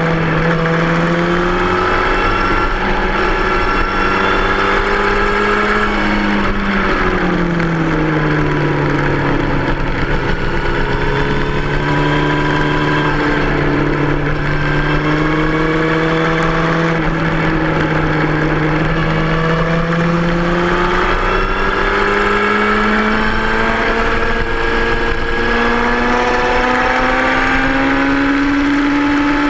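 2003 Yamaha R1's 998 cc inline-four engine running hard as the motorcycle laps a race track. The engine note holds steady, drops slightly about a quarter of the way in, then climbs slowly toward the end.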